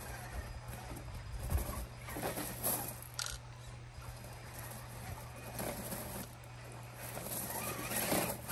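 Loose gravel crunching and rattling in irregular bursts under the tyres of a 1:10 scale RC crawler creeping along in low gear, over a low steady hum.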